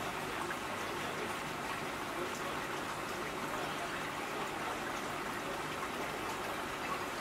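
Steady, even background hiss with a few faint ticks.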